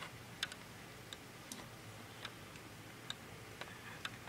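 Faint, irregular clicks of plastic Lego parts as the lever arm of a Lego soda machine is worked by hand.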